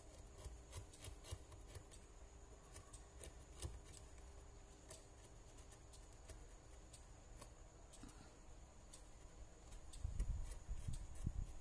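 Small carving knife paring thin shavings off a wooden popsicle stick: faint, irregular clicks and scrapes of the blade cutting the wood. A few dull low bumps near the end.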